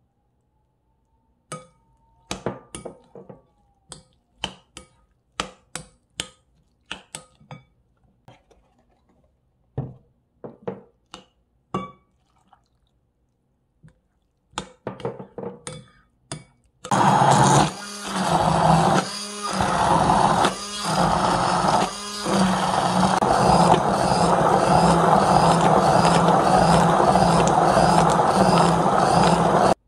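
A metal spoon clinks irregularly against a glass mixing bowl while stirring a wet corn and potato mixture. About 17 seconds in, an immersion (stick) blender starts, stops and restarts several times in short pulses, then runs steadily, puréeing the mixture.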